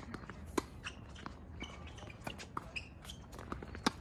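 Tennis rally on a hard court: a series of sharp pops from the ball striking racquets and bouncing, the loudest a close backhand hit just before the end.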